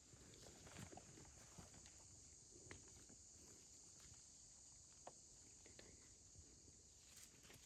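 Faint, irregular footsteps through forest undergrowth and leaf litter, over a steady high hum of insects such as crickets.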